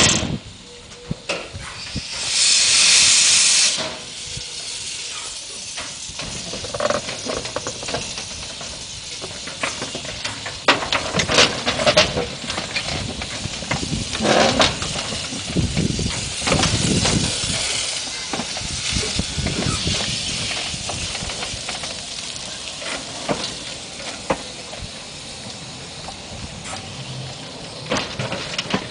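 Small narrow-gauge steam locomotive hissing steam as it runs slowly along the track, with a loud burst of steam hiss about two seconds in that lasts a second and a half. Scattered clanks and knocks follow through the rest of the run.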